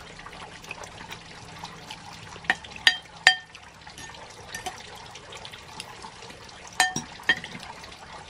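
Metal spoon and fork clinking and scraping against a ceramic bowl while eating: three ringing clinks a little over two seconds in and two more near the end, over a steady background hiss.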